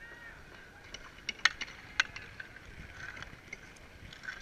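Outdoor ice rink during a stoppage: a few sharp clacks of hockey sticks and pucks on the ice, the loudest about one and a half and two seconds in, over a low steady background hiss.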